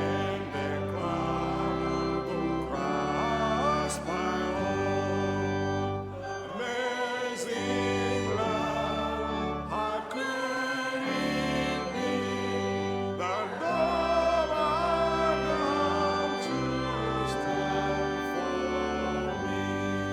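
Hymn singing with sustained organ chords underneath; the voices waver with vibrato over held organ notes.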